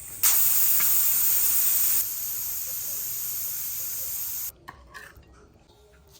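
Loud sizzling hiss from a hot cooking pan. It starts suddenly, drops in level about two seconds in, and cuts off sharply a little past the middle.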